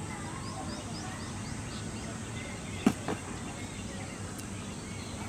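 Steady outdoor background noise with a run of faint, short high chirps in the first two seconds. About three seconds in there is a single sharp knock, the loudest sound, followed by a softer one.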